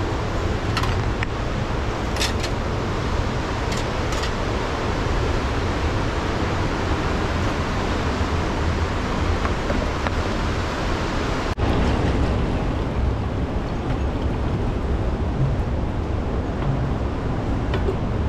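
Steady rush of river water, with a few light clicks in the first few seconds.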